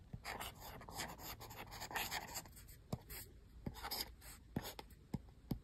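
A reMarkable stylus nib writing on a reMarkable 2 tablet's screen: quiet, short scratchy strokes, with a few sharper ticks in the second half.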